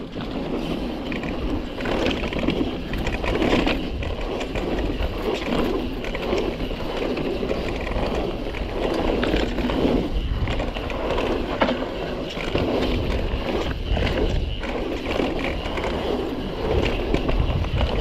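Guerrilla Gravity MegaTrail mountain bike riding fast down a damp dirt singletrack: a steady rumble of knobby tyres rolling over the ground, with frequent rattles and knocks from the bike over bumps and roots.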